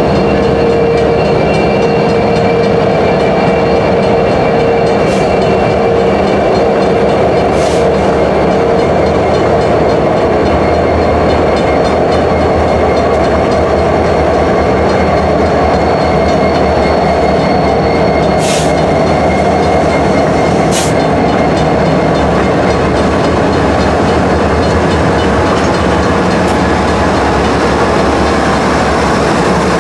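Diesel freight locomotives rolling past at close range, engines running with a loud, steady rumble. A steady tone fades out in the first few seconds, and a few brief high hisses cut through.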